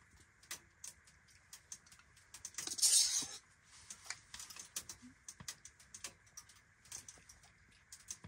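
Scattered small clicks and clinks, with one louder scrape about three seconds in: a serving spoon working in a cooking pot as pasta and sauce are dished onto plates.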